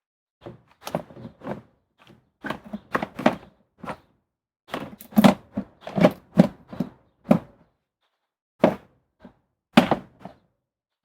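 Irregular knocks and clicks of a car's plastic interior trim being pushed and snapped into place as the last piece is refitted, busiest in the middle.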